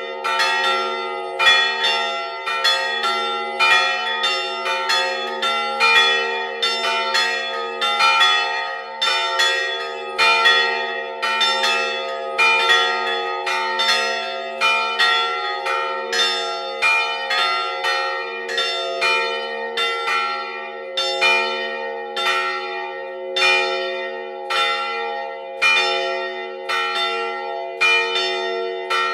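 Church bells chiming continuously, with strokes at about two a second, each ringing on over the others. They are three fixed bronze bells struck by their clappers rather than swung: a large 258 kg bell near B-flat, a 112 kg bell near E and a 90 kg bell near E-flat.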